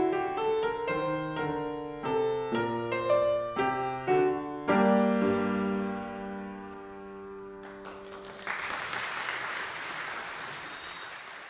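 Solo grand piano playing the closing notes of a piece, ending on a low final chord about five seconds in that rings out and fades. Applause starts about eight seconds in and continues to the end.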